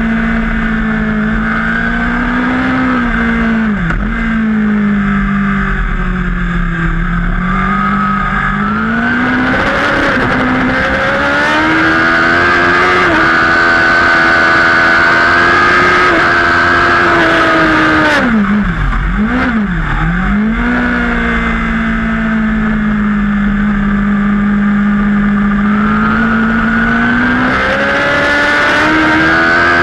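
Open-class superbike engine at race pace, heard from a camera mounted on the bike over steady wind noise. Its pitch holds high for long stretches under full throttle and drops sharply twice, about four seconds in and again a little past halfway, as the bike brakes and slows for corners.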